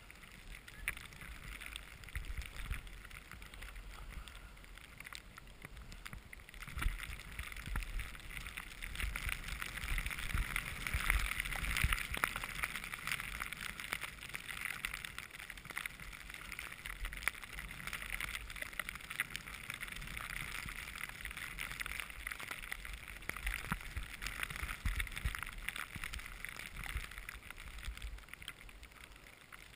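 Skis running through fresh powder snow make an uneven, steady hiss, with wind rumbling on the microphone. The hiss swells to its loudest about eleven to twelve seconds in.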